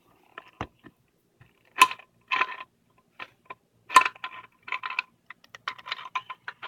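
Metal parts of a steering wheel quick release hub clicking and clinking against each other as they are handled, fitted together and turned, with a short metallic ring on the louder knocks. The knocks come irregularly, several of them loud.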